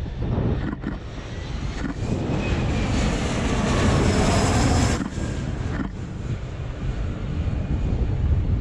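Jet airliner passing close by, its engine noise with a gliding whine swelling to its loudest about four to five seconds in, then cutting off abruptly. Wind rumbles on the microphone throughout, with a few sharp camera-shutter clicks.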